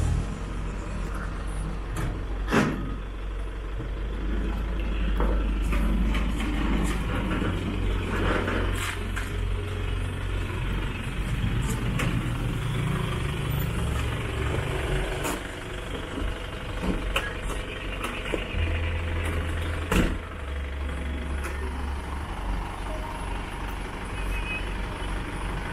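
Isuzu Elf flatbed tow truck's diesel engine running steadily, with a few sharp knocks, the loudest about two and a half seconds in and another about twenty seconds in.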